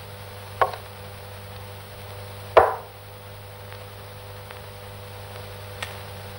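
A few sharp knocks of small objects against a workbench: a light one about half a second in, a loud one about two and a half seconds in with a short ringing tail, and a faint one near the end. A steady low hum lies beneath.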